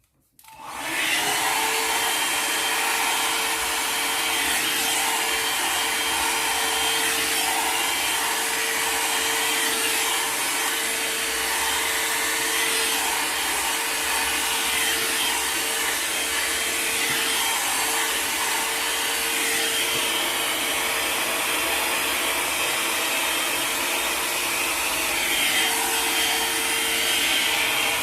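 Safeway Salon Series volumised hot-air brush (a hair dryer brush) running steadily while blow-drying hair, with a constant hum under the rushing air. It switches on just after the start and cuts off at the end.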